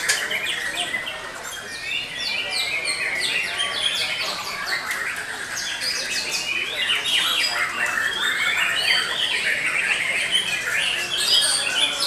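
Several caged white-rumped shamas singing at once: a dense, continuous tangle of quick overlapping whistles, sweeps and chirps.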